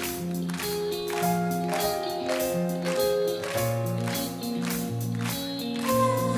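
Live band playing the instrumental intro of a pop song: electric guitar and bass notes over a steady drum beat.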